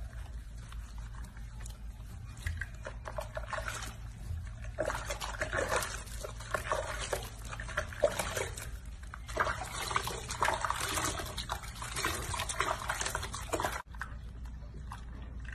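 Soapy bath water sloshing and splashing in a sink as hands wash a baby macaque, in irregular short splashes.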